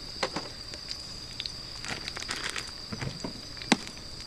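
Wood fire crackling in a fire-pit grill, with sausages sizzling: scattered small pops and one sharp loud pop about three and a half seconds in. A steady high insect drone continues underneath.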